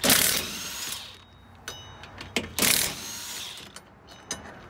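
Cordless impact wrench hammering on the rear wheel hub bolts in two short bursts about two and a half seconds apart, each winding down with a slightly falling whine as the trigger is let go.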